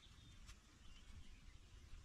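Near silence: faint outdoor background with a soft click about half a second in and a faint bird chirp.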